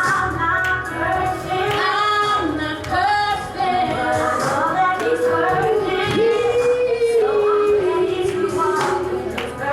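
A woman singing a gospel song with musical accompaniment, drawing out one long held note in the middle.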